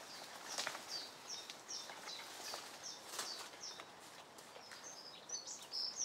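A small songbird singing a run of short, high chirps, about three a second for the first few seconds, then a few more chirps near the end, over outdoor ambience with scattered light clicks.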